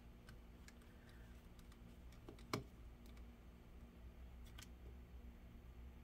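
Faint ticks of a small screwdriver and tiny screws going into a laptop's metal trackpad bracket, with one sharper click about two and a half seconds in, over a faint steady hum.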